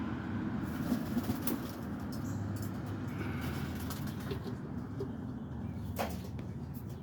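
Pigeons: a few sharp wing flaps and cooing over a steady low rumble.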